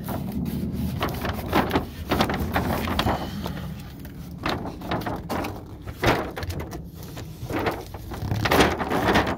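A large cardboard box being opened and its contents handled: irregular scraping, rustling and knocks.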